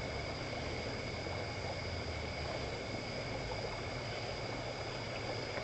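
Crickets and other night insects trilling steadily, two high unbroken tones, over a low steady rumble.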